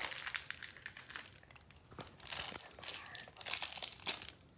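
Crinkling and tearing of a small plastic toy packet being picked and pulled at by hand in an effort to open it, in several irregular crackly spurts.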